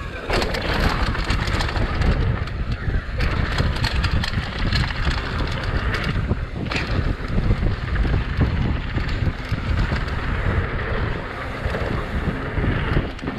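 Wind buffeting the microphone and mountain bike tyres running fast over a dirt trail, with a steady rumble and frequent short knocks and rattles from bumps.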